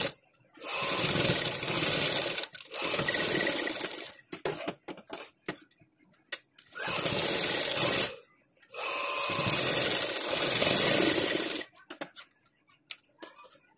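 Domestic sewing machine stitching a seam through cotton fabric in four runs of one to three seconds each, stopping briefly between runs, with light clicks of handling in the pauses and after the last run ends.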